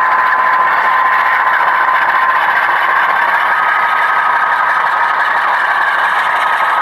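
Diesel locomotive sound from the ESU LokSound version 4 decoder in an HO scale GE C39-8 model, played through the model's small speaker: a steady engine run with a whining tone that rises slightly about three seconds in.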